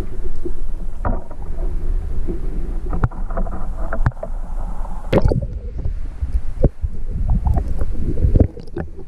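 Flowing stream water heard through an underwater camera housing: a muffled steady low rumble, broken by several sharp knocks and clicks.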